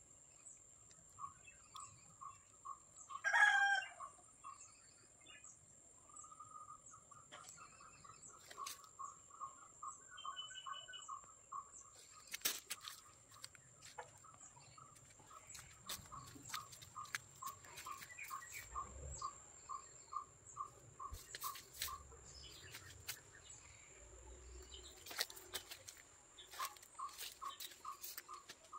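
A chicken crows once, briefly, about three seconds in; this is the loudest sound. Behind it run a steady high buzz and a long series of short, evenly spaced chirps about three a second, with scattered faint clicks.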